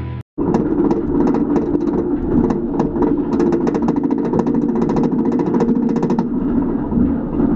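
Roller coaster train riding up the chain lift hill: a steady rumble from the lift chain and track, with rapid clacking from the anti-rollback that stops about six seconds in.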